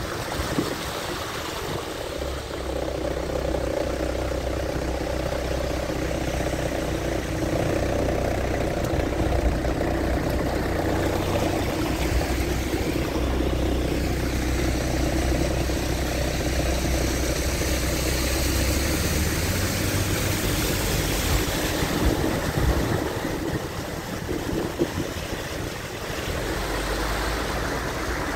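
A car engine running steadily as the car moves slowly through shallow floodwater, with the wash of water around the tyres. The low engine hum drops away about two-thirds of the way through.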